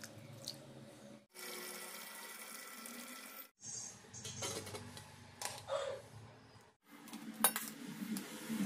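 Water sloshing and dripping in steel pots as cooked rice is lifted out of its water with a slotted spoon and tipped into a steel pan. The sound is broken by several abrupt cuts.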